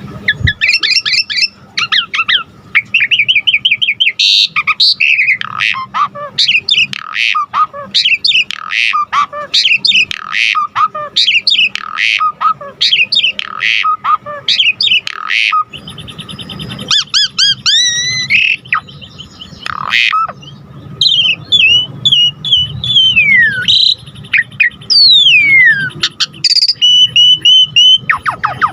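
Javan pied starling (jalak suren) singing a long, varied song packed with fill-in phrases: first rapid chattering and chirping notes, then after a brief pause clear whistles, buzzy held notes and long falling slurs.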